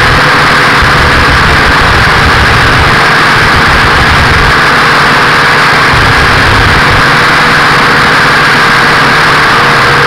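Nine Eagles Galaxy Visitor 6 quadcopter's electric motors and propellers in flight, heard through its onboard camera: a loud, steady buzzing whine holding one tone, over a fluctuating low rumble.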